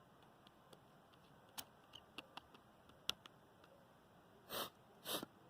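A wood bonfire crackling faintly, with a few scattered sharp pops. Near the end there are two short, louder rustles about half a second apart.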